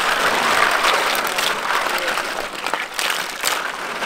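Live snails being scrubbed by hand in a large metal basin of water: water splashing and sloshing with dense clattering of shells against each other, and scattered sharper clicks.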